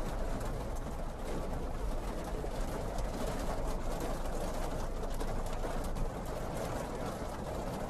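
Steady rain falling, heard as an even hiss with no break.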